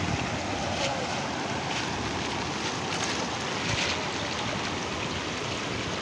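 Steady rush of floodwater pouring over a small concrete check dam's spillway, with wind on the microphone.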